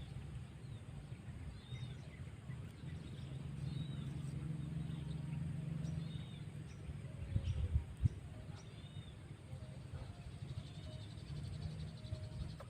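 Birds chirping outdoors: short, high, curved chirps repeated at irregular intervals over a steady low hum, with a couple of dull thumps about two-thirds of the way in.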